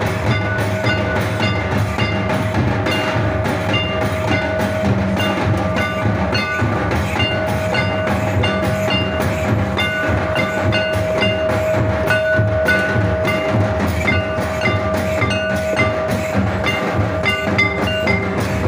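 Live Santali dance music on slung barrel drums and large brass hand cymbals, beating out a steady rhythm with a held tone sounding throughout.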